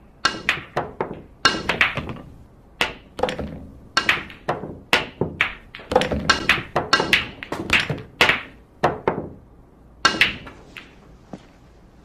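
Pool cue and billiard balls clacking on a pool table: a quick run of sharp knocks as the cue tip strikes the cue ball and balls hit each other, several shots in a row, thinning out to a few single knocks near the end.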